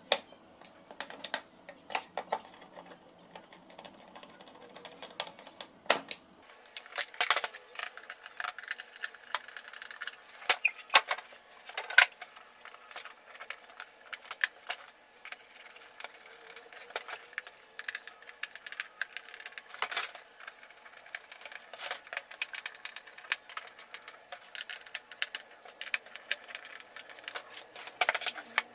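Irregular clicks, taps and light metallic knocks from a hand screwdriver working the screws of a solar street light's aluminium housing and the lamp being shifted on a metal bench, with a few sharper knocks standing out.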